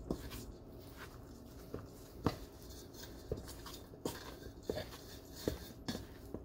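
A metal spoon knocking and scraping against a stainless steel bowl as stiff buttercream of butter and icing sugar is mixed by hand: faint, irregular knocks, roughly one or two a second.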